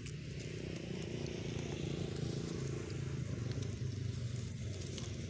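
A motor vehicle's engine running steadily, its low hum growing a little louder about a second in, with light crackles of dry leaves being handled.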